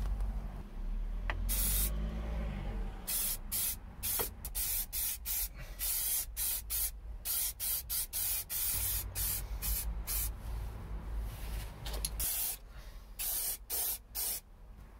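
Aerosol spray paint can hissing in many short bursts with brief gaps between them: silver Hammerite paint being sprayed.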